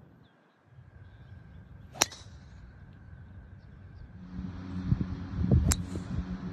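A golf club striking the ball with a sharp crack about two seconds in, and again a little before the end. The second strike comes over wind buffeting the microphone.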